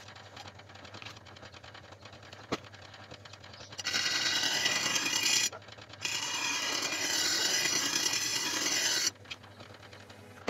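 Steel from an old chainsaw bar being ground against a large spinning abrasive wheel, in two passes: one of about a second and a half starting about four seconds in, and a longer one of about three seconds after a short break. Between the passes only a low steady hum is heard.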